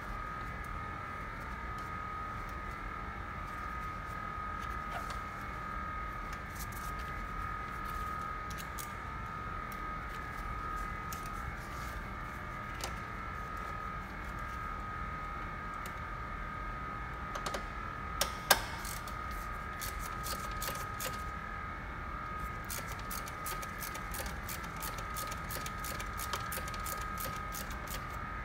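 Small clicks and taps of plastic and metal parts being handled and fitted in a car's engine bay as the cooling fan control module is reinstalled, with a couple of sharper clicks about 18 seconds in and a run of light ticks near the end, over a steady high hum.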